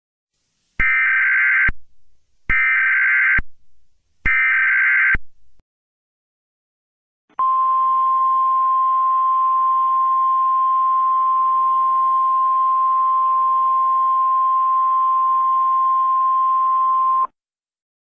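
Emergency Alert System header data: three identical harsh, buzzy digital screeches about a second long, each a second apart. After a short pause comes a single steady, piercing attention tone, held for about ten seconds and cut off sharply.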